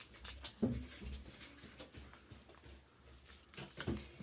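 Foil wrapper of a Kinder Surprise chocolate egg crinkling and crackling as small fingers peel it off, in a run of short, irregular rustles, with two brief low sounds about half a second in and near the end.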